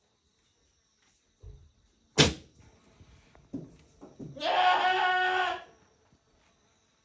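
A goat bleats once, a call of about a second starting about four and a half seconds in. Before it come a few knocks, the loudest a sharp clack about two seconds in.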